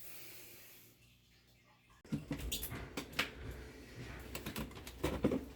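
Near silence for about two seconds, then scattered light clicks and taps with handling noise.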